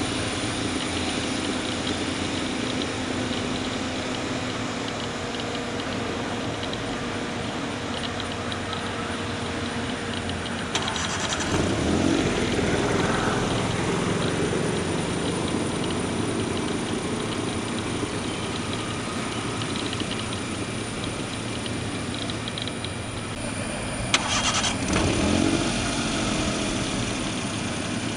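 Boeing 777's jet engines running steadily as the airliner rolls down the runway after touchdown: a continuous rumble and hiss with a faint steady hum. Two louder swells come about 11 and 24 seconds in, the second starting with a sharp click.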